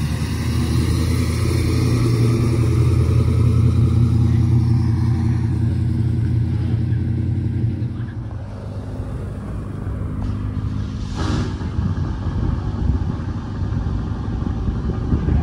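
Classic American car engine running with a steady low note as the car pulls past. About eight seconds in it gives way to quieter, noisier street sound with engines running, and a brief rush of noise about eleven seconds in.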